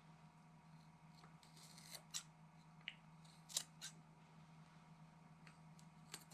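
Near silence over a steady low hum, broken by a few faint, short snips of scissors trimming a sticker, the clearest about three and a half seconds in.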